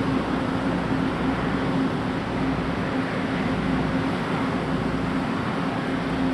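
A steady engine hum over a constant rush of noise, even in level with no starts or stops.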